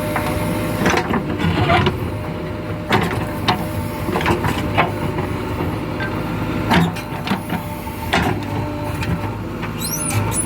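JCB 3DX backhoe loader's diesel engine running steadily, with irregular metallic knocks and clanks from the working machine, a few of them louder, about 3 and 7 seconds in.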